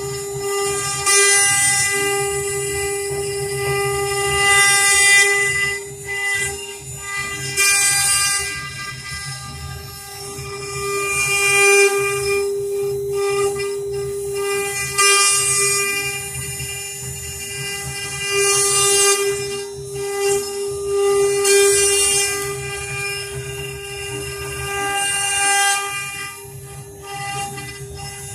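CNC router spindle running with a steady high-pitched whine over a low machine rumble, with hissy surges of cutting noise every few seconds as the machine works.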